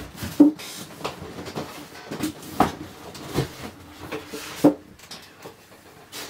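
A cardboard blender box being handled and put down: a few separate knocks and thumps, the sharpest about half a second in and another just before five seconds, with low rustling between them.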